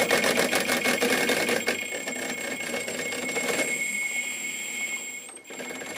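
Sensorless brushless electric motor driving the buggy's rear axle through a pulley at low throttle and cogging: it stutters in a rapid, even rattle of jerks under a steady high electronic whine, the rattle thinning a little past halfway. The cogging comes from sensorless motors and controllers at slow speed, which sensored ones would cure.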